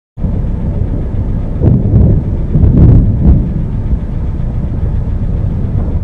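Thunderstorm noise: wind buffeting the microphone with a heavy low rumble, swelling briefly about two and three seconds in.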